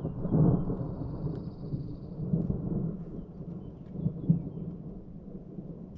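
Distant thunder rumbling and rolling on, swelling several times, with the loudest peaks about half a second in and again around four seconds.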